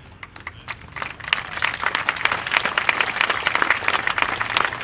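Audience applauding: a few scattered claps at first, filling in to steady, even clapping about a second in.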